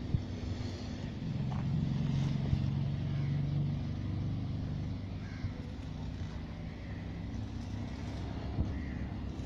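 A motor engine running steadily with a low hum that swells for a few seconds about a second in, then eases back.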